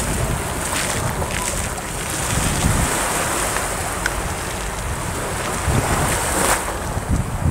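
Small waves breaking and washing up the beach in a steady surf, with wind rumbling on the microphone. There is a louder wash near the end.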